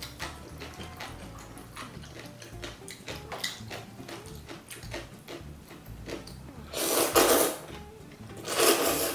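Chopsticks working through sticky jjajangmyeon noodles in black bean sauce, with small clicks and wet mixing sounds, then two loud slurps of the noodles near the end.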